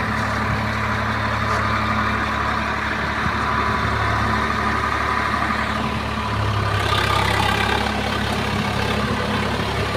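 Swaraj 742 FE tractor's three-cylinder diesel engine running steadily as the tractor backs up in a muddy field; the engine grows a little louder about seven seconds in.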